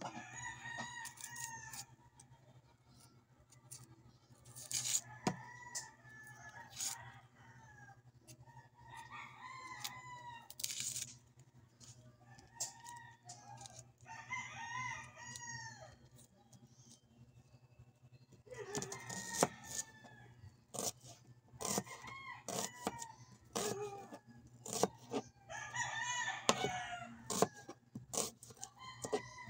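Chickens clucking and a rooster crowing repeatedly, call after call, with scattered sharp clicks and knocks in between over a steady low hum.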